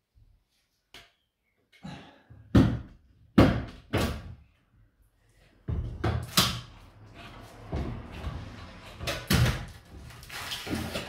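Hard knocks and bangs as a false ceiling beam is prised off the wall with a bar, with a rough scraping noise between the blows in the second half.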